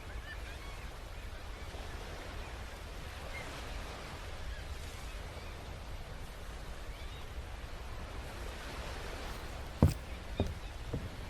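Steady outdoor background noise with a low rumble. About ten seconds in there is one sharp knock, followed quickly by a few softer knocks.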